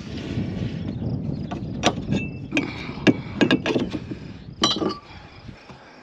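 A string of sharp metallic clanks and clinks, about a dozen over three seconds, some ringing briefly, around a UTV's steel cargo bed with a heavy wooden post loaded in it.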